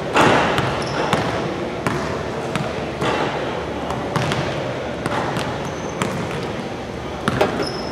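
Basketballs bouncing irregularly on a hardwood gym floor, with sharp thuds echoing in a large gymnasium over a steady background din.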